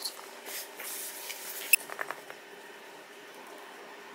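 A puppy tugging and chewing a braided rope toy with a plastic end on a hard floor: soft scuffs and rustles, with a sharp click a little under two seconds in and a few quick taps right after.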